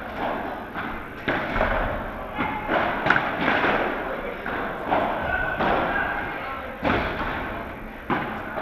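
Padel rally: a ball hit by solid padel rackets and bouncing off the court and glass walls, a string of sharp hits roughly once a second, each echoing in the hall.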